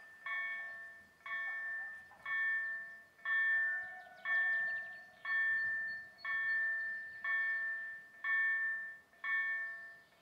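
Railway level crossing warning bell ringing, about one strike a second, each strike fading before the next. It signals that the crossing is closed, barriers down, for an approaching train.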